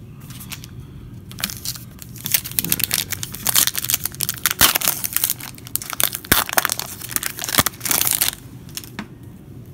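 Foil wrappers of trading card packs crinkling and crackling as the packs are picked up and set down in a new stack, in irregular bursts that stop about eight seconds in.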